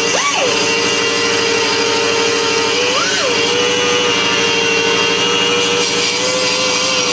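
Handheld die grinder running at high speed, its bit grinding and cleaning up the edges of a Briggs & Stratton engine cylinder: a steady high whine with hiss. The whine jumps up in pitch and falls back twice, about a quarter second in and about three seconds in.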